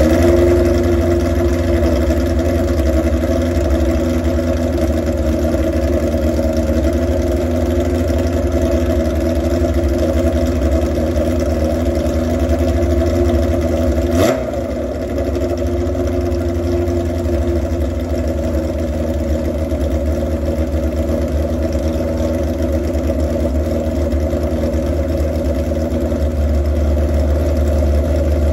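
Motorcycle engine idling steadily while unlit propane gas is passed around the carburettor intake rubbers. The idle does not change, so no vacuum leak shows there. There is a brief click about halfway through, after which the sound drops slightly.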